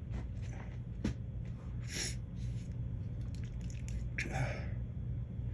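A man's quiet sniffs and breaths after a sneezing fit: two short ones about two and four seconds in, among faint clicks and rustles.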